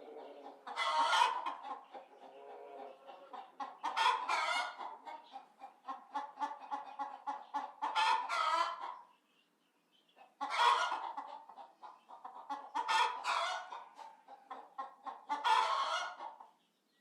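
Chicken clucking in quick runs, broken by six loud, drawn-out squawking calls spaced a couple of seconds apart, with a brief pause a little past halfway.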